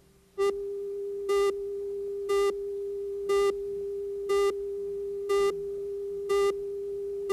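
Broadcast videotape countdown leader: a steady reference tone with a louder, buzzier beep once a second, ticking off the seconds to programme start. The tone comes in about half a second in.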